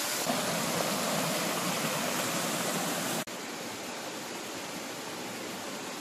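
Small waterfall rushing down rock into a pool: a steady wash of falling water that drops suddenly to a lower level about three seconds in, then carries on evenly.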